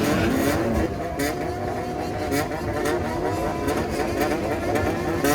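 Honda CBR400F's inline-four engine revved in a low-rev call, the throttle worked in a rhythm so the revs rise and fall. The biggest swings come in the first second, then smaller blips follow.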